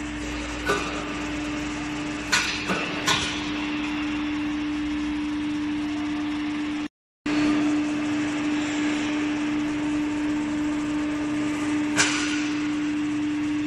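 Hydraulic cutterhead for a submersible dredge pump, driven by a hydraulic power pack and turning in the air: a steady hum with a level mechanical noise. A few sharp metallic knocks come in the first few seconds and one more near the end, and the sound cuts out for a split second about halfway.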